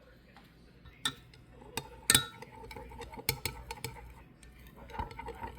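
A utensil clinking and tapping against a cup of melted soft plastic as the plastic is stirred, in irregular sharp clicks from about a second in, the loudest about two seconds in.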